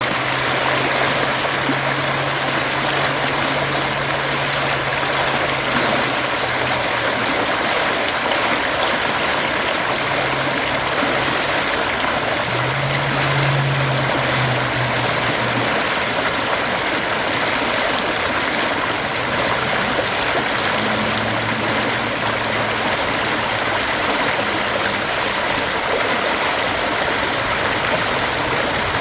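Creek water flowing steadily, a constant rushing and trickling. A faint low hum comes and goes beneath it for a few seconds at a time.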